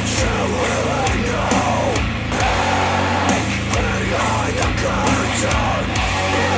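Music playing through a JBL Xtreme 3 Bluetooth speaker: a heavy, loud track with singing over sustained bass notes.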